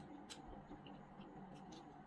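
Faint, sparse wet clicks and smacks of eating by hand: fingers working rice and saucy chicken on a plate, and chewing. A low steady hum runs underneath.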